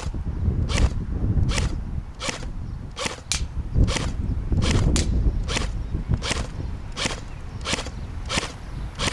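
Thompson M1928 airsoft replica firing single shots in semi-auto mode: a dozen or so sharp cracks, roughly one every 0.7 seconds, over a steady low rumble.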